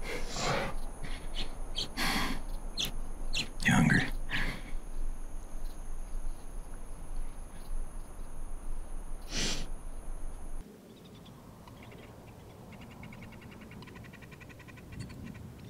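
Several short, sharp noises over a steady hiss, then a quieter open-air ambience in which a small bird chirps in quick repeated trills, with one clearer call near the end.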